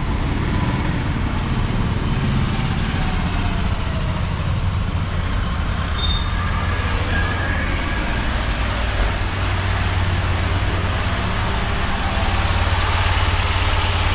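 Tata Nano's small two-cylinder petrol engine running steadily with the AC on, a little louder in the last couple of seconds.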